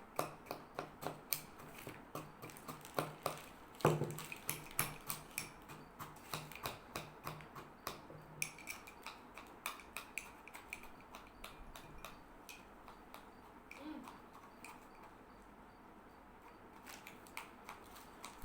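Dry Ahlawy biscuits being chewed and crunched quickly, sharp crunches and clicks coming about twice a second, fewer towards the end.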